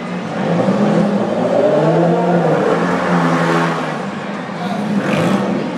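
Demolition derby cars' engines revving over the arena noise, the pitch rising and falling several times as the cars drive at one another.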